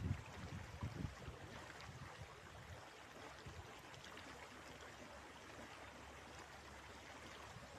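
River water running over rocks, a steady rushing hiss, with gusts of wind buffeting the microphone in the first second.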